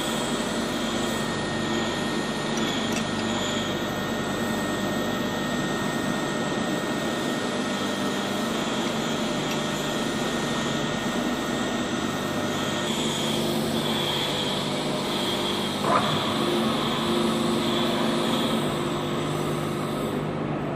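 Steady drone of running machinery and fans in a metalworking workshop, with a single sharp knock about 16 seconds in.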